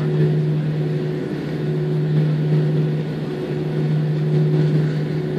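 A steady machine hum with a constant low tone and a fainter higher one, dipping briefly a few times.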